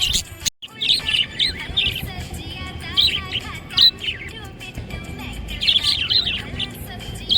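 Budgie (budgerigar) chirping in bursts of quick, high chirps. The bursts are busiest about a second in and again around six seconds, after a brief drop to quiet about half a second in.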